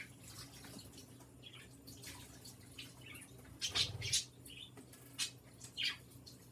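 Budgie bathing in a shallow water dish: short bursts of splashing and wet wing-fluttering, the loudest a little past halfway, with a few faint chirps.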